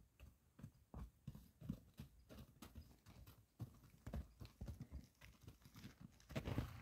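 Gotland pony walking through snow: soft, irregular hoof thuds and crunches, a few a second, getting louder near the end.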